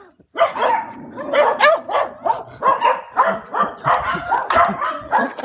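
Several small dogs behind a gate barking and yapping in a rapid run of short barks, roughly three a second.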